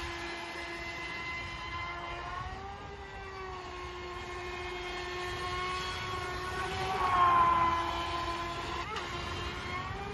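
HobbyKing Aquaholic V2 RC speedboat's electric motor and propeller running at speed: a steady high whine with overtones that bends in pitch as the boat turns, and grows loudest about seven seconds in.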